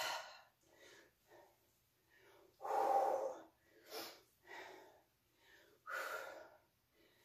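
A woman breathing hard during weighted squats, inhaling through the nose and exhaling through the mouth. Two strong breaths about three seconds apart stand out, with shorter, softer breaths between them.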